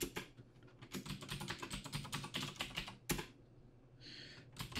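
Typing on a computer keyboard: a quick run of keystrokes, then one louder key press about three seconds in.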